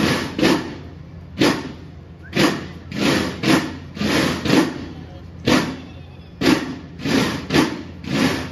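Drum strokes in a slow march rhythm: single loud beats about half a second to a second apart, in short groups with brief pauses, each ringing briefly.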